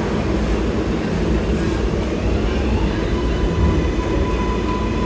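Subway train running through the station, a steady heavy rumble, with a thin steady high tone joining about three seconds in.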